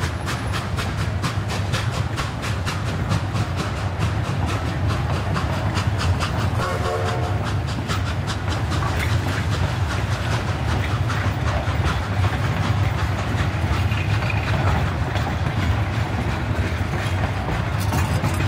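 Durango & Silverton narrow-gauge passenger coaches rolling past, their wheels clicking in a rapid, regular rhythm over the rail joints with a steady low rumble; the clicking is strongest in the first half. A short pitched sound rises above it about seven seconds in.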